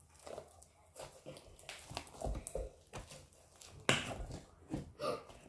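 Quiet hand sounds of slime being squished and pushed into a clear plastic toy ball, with scattered soft clicks and taps of the plastic. There are a couple of low thumps a little past two seconds in and a sharper click about four seconds in.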